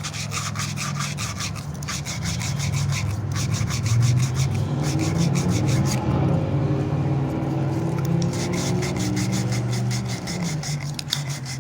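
Emery cloth rubbed quickly back and forth around the end of a copper pipe, scouring it bright for soldering, in two spells with a pause about three seconds in. A steady low hum runs underneath and grows louder in the middle.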